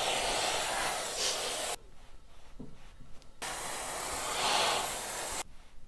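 Steam iron giving two bursts of steam, each hissing for about two seconds and cutting off sharply, while pressing a wool coat's pocket flap.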